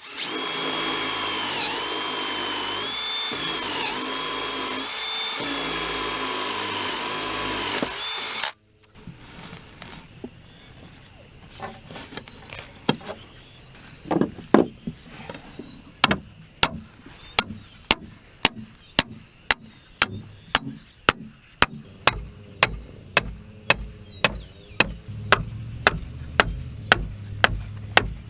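Power drill running hard for about eight seconds, its pitch dipping again and again as it bogs under load, then cutting off. A steady series of sharp ticks follows, about two a second.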